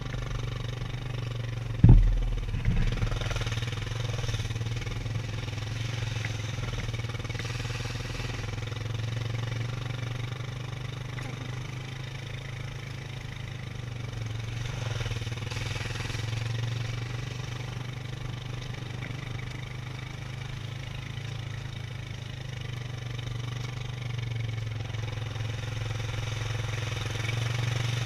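ATV engine running steadily at trail speed, rising and falling a little in level. A single sharp thump about two seconds in is the loudest sound, followed by a few lighter knocks.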